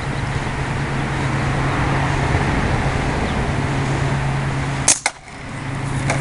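A steady low mechanical hum, then about five seconds in a single sharp shot from an Umarex Legends Cowboy lever-action CO2 BB rifle. The CO2 is nearly spent, so the shot is weak and the BB drops, which is why it had to be aimed high.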